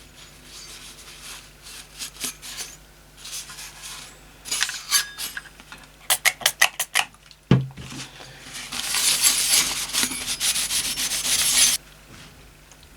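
Heatsink being scrubbed clean: bursts of quick rubbing strokes, with a knock about halfway through and a denser, steady run of scrubbing for about three seconds near the end that stops abruptly.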